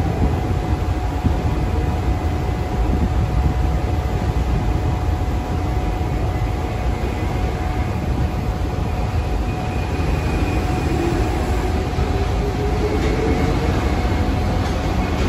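Tokyo Monorail train pulling out of the station over a steady low running rumble. From about the middle on, its motors give a whine that rises slowly in pitch as it accelerates.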